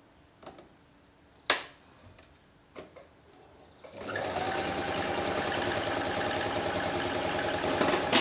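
A few sharp clicks, the loudest about a second and a half in, then about four seconds in an electric household sewing machine starts stitching and runs at a steady speed.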